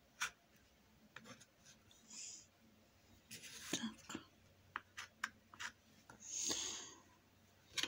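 Paintbrush loaded with acrylic paint swishing across the painting in a few strokes, the longest near the end, with scattered light taps and clicks.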